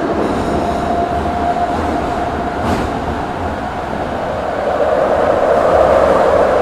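Kobe Municipal Subway 1000 series train running, heard from inside the car: a continuous rumble of wheels and running gear. A thin steady whine sounds for the first couple of seconds, and the running noise grows louder from about five seconds in.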